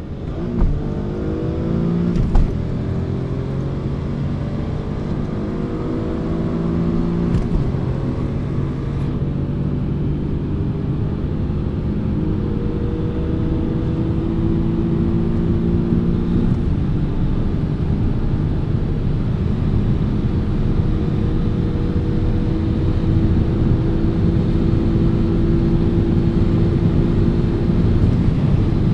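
Car engine accelerating hard from about 60 km/h in second gear, heard from inside a moving car: its pitch climbs, drops back at gear changes about two and seven seconds in, then keeps rising, over wind and road noise. The sound grows louder toward the end.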